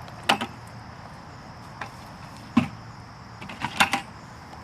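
A few short knocks and scrapes, the loudest about halfway through, from hands digging potatoes out of the soil in a 5-gallon plastic bucket, over a faint steady chirring of insects.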